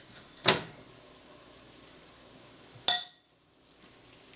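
Two sharp clinks of a utensil against a cooking pot, about half a second in and just under three seconds in; the second is louder and rings briefly.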